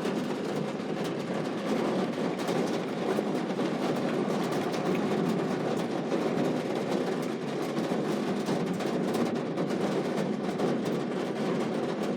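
Heavy rain falling steadily, a dense even patter of many drops.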